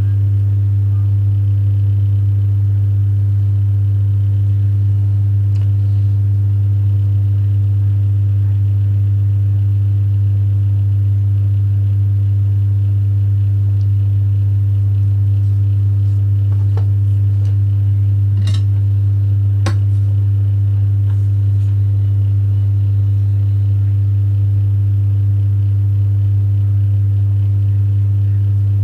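A loud, steady low hum that never changes, with weaker higher overtones above it. Two sharp clicks about a second apart come about two-thirds of the way through, among a few fainter ones.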